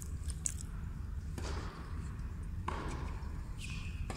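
Tennis rally: sharp pops of a racket striking the ball, over a steady low rumble of the arena.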